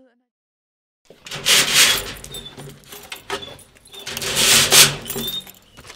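After about a second of silence, keys jangle and a steel mesh security gate rattles and scrapes as it is unlocked and opened, with two louder bursts of rattling.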